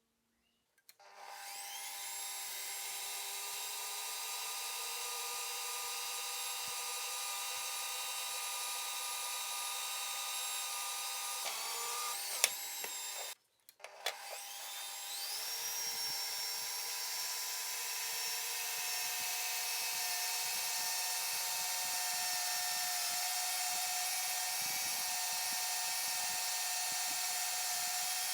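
Electric power tool motor starting up and running steadily. It stops abruptly a little under halfway through, then starts and spins up again, with rough working noise under it in the second half.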